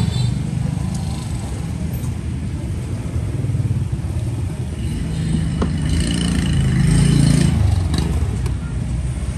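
Road traffic with motorbike and car engines running by, a steady low rumble that swells to a louder engine hum about six seconds in. A couple of faint clicks are heard over it.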